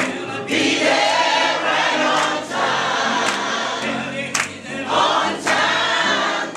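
A church choir singing a gospel song, with sharp beats landing about once a second.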